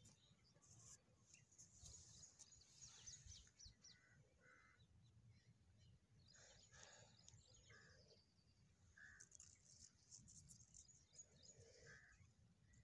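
Faint outdoor ambience: short distant bird chirps every second or two over a low hum, with light crackling rustles now and then.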